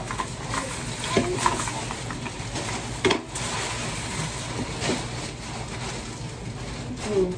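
Plastic grocery bag rustling and crinkling while groceries are handled and set on refrigerator shelves, with scattered knocks and clicks; one sharp knock about three seconds in is the loudest.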